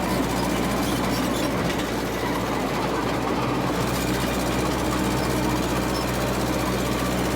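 Massey Ferguson MF 300 crawler dozer running steadily, its diesel engine droning with a continuous clatter from the machine.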